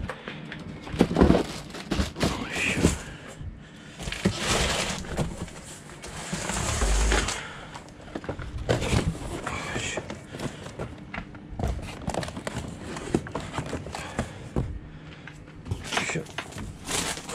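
Heavy delivery boxes being shifted and set down: a run of knocks, thuds and scrapes, with a couple of longer scraping noises partway through.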